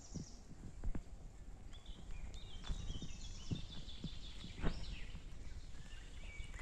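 Footsteps on a forest footpath, a low thud about every second, while a bird sings a run of short high notes through the middle.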